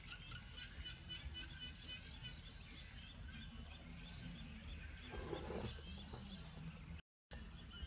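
Outdoor ambience: short high chirps repeating about three times a second over a steady low rumble. A brief mid-pitched sound rises out of it a little past five seconds in, and the sound cuts out completely for a moment near the end.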